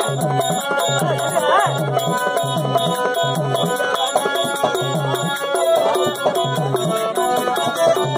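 Live stage accompaniment: a harmonium plays a melody of held reedy notes over a steady low drum beat of about two strokes a second.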